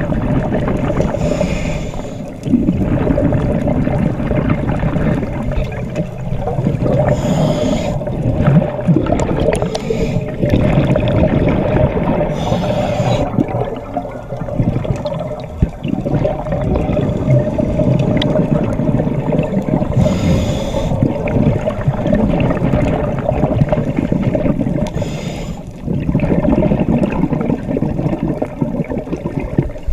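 Scuba regulator breathing heard underwater: a continuous low bubbling rumble of exhaled air, broken every five to eight seconds by a short hiss of inhalation.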